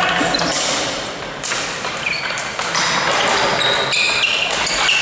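Ball hockey play on an indoor court: sticks and ball knocking, with short high squeaks scattered through it, echoing in a large hall.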